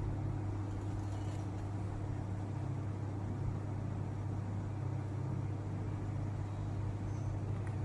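A steady low hum, holding one pitch, with no keystrokes.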